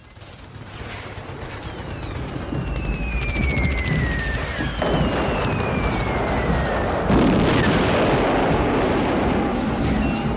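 Wartime sound effects: two falling-bomb whistles, each sliding down in pitch and ending in an explosion, over a swelling din with rapid crackling like gunfire.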